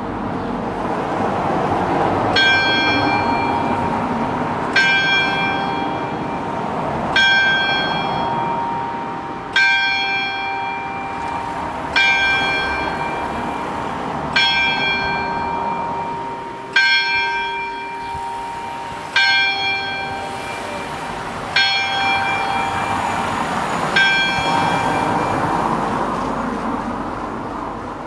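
Town hall clock-tower bell striking the hour of ten: ten strokes about two and a half seconds apart, each left to ring on and hum into the next. A bell is already ringing out before the first stroke.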